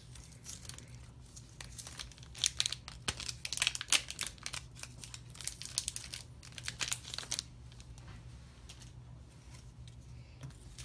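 Foil wrapper of a Pokémon Sword and Shield booster pack crinkling and tearing as it is opened. A dense run of sharp crackles starts about two seconds in and dies down after about seven seconds, leaving a few faint rustles.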